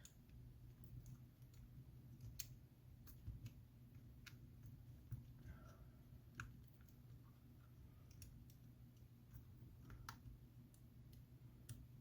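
Faint, sharp little clicks, scattered irregularly about every second or two, from flex-cable connectors being pressed back onto an iPhone X's board. A low steady hum runs underneath.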